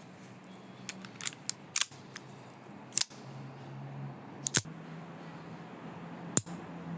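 Sharp mechanical clicks and snaps of a Walther GSP .22 target pistol being handled, coming irregularly: a quick cluster in the first two seconds, then three louder single snaps about three, four and a half and six and a half seconds in.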